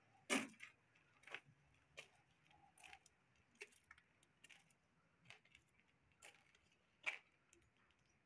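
Faint footsteps on a dusty concrete floor, a short sharp scuff at walking pace, a little more than one a second. The loudest steps come just after the start and about seven seconds in.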